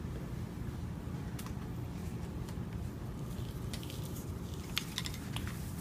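Steady low room hum, with a handful of faint clicks and rustles from light handling in the second half.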